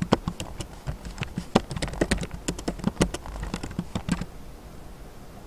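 Computer keyboard typing: a quick, irregular run of keystrokes that stops about four seconds in.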